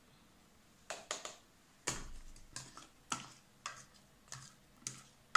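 Green plastic scoop tapping and scraping in a glass baking dish as diced fruit is scooped out: a quick, irregular series of light clicks and knocks, starting about a second in.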